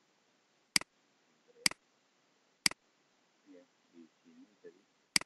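Four sharp computer mouse clicks: three about a second apart, then one more near the end.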